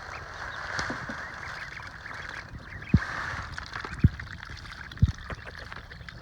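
Baby ducks calling as they scramble for mealworms, with three sharp low thumps about three, four and five seconds in.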